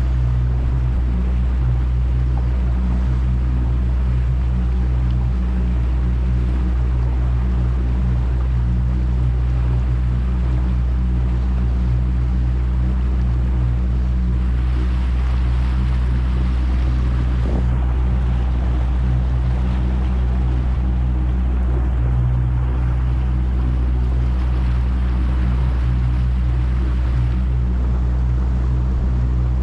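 Boat motor running at a steady speed, a constant low hum. A hissing rush joins it through the middle part.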